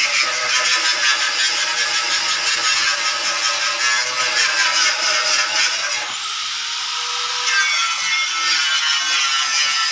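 Angle grinder running against the bars of a metal gate, grinding off old paint. The sound eases briefly about six seconds in, then picks up again.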